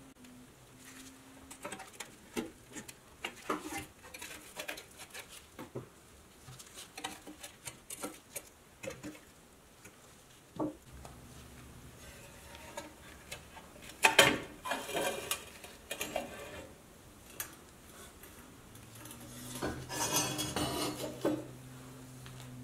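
Pressed-steel parts of a 1963 Tonka toy tow truck clinking, rattling and scraping against each other and the wooden workbench as they are handled. Scattered light clicks, with two louder spells of rattling, one about halfway through and one near the end.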